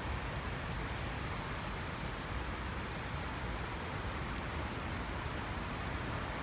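Loud, steady rushing of a waterfall, an even noise with no breaks, with faint scattered crackles from a wood campfire.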